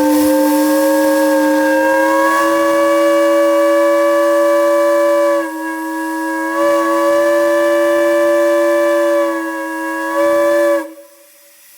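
Steam gong whistle, a shop whistle, sounding a steady chord of several tones in one long blast. It is eased down twice, about five and a half and nine and a half seconds in, and cut off a little before the end.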